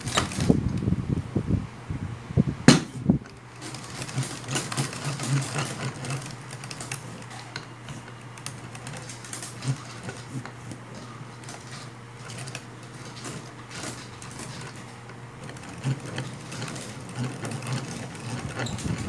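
Hand-cranked coil-winding machine turning steadily, its crank and gears clattering with many small clicks as No. 19 copper magnet wire winds onto a transformer bobbin. A sharper knock comes about three seconds in.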